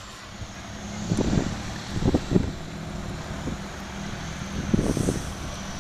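Wind buffeting the microphone in a few low gusts, about a second in, around two seconds in and near the end, over a steady low hum.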